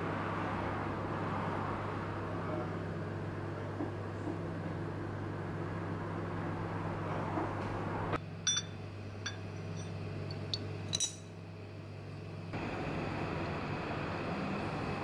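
Steady low hum with a haze of room noise. A little past halfway the noise thins, and a handful of light, sharp clinks of crockery ring out before the noise returns.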